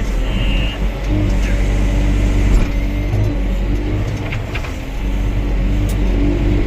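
Excavator's diesel engine running steadily under load while it digs, its pitch dipping and recovering a few times, with a few light knocks.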